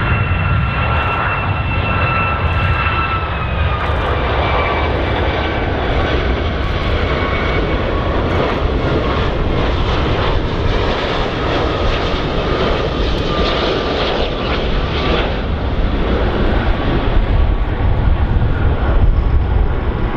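Airplane engines during a landing: a loud, continuous rumble with a steady whine that drops slightly in pitch about three to four seconds in, growing a little louder near the end.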